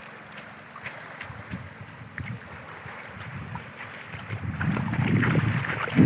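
Small waves lapping and washing over a shallow lake shore, with faint little splashes. From about two-thirds of the way through, wind buffets the microphone with a low rumble that grows louder.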